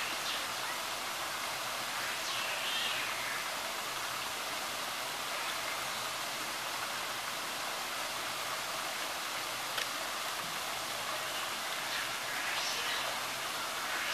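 Steady hiss and splash of a water shower jet spraying down into a shallow pool.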